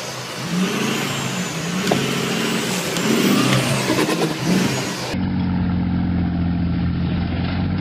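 Off-road 4x4 pickup engine revving up and down as the truck crawls over rough ground, with a few knocks. After a cut about five seconds in, another off-road vehicle's engine runs steadily under load on a steep climb.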